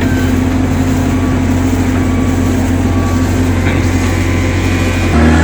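Bobcat skid steer loader's diesel engine running steadily with a constant low hum. Just before the end the engine note shifts and gets louder.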